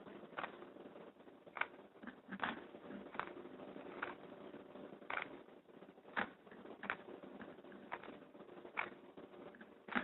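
Plastic Rubik's cube layers clicking as they are turned by hand, about one click a second, while the L' U' L U last-layer move sequence is repeated.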